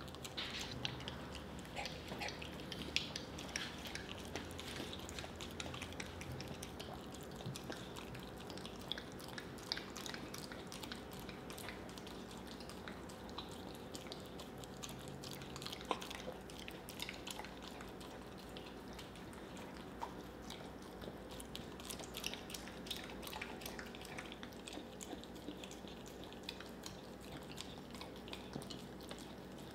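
Mini whoodle dog chewing and smacking its lips on a sticky mouthful of peanut butter: a long run of small wet clicks and smacks.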